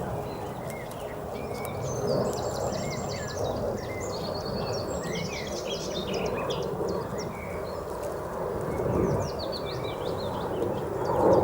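Several small songbirds singing and calling in quick chirps and trills, over a steady low background noise.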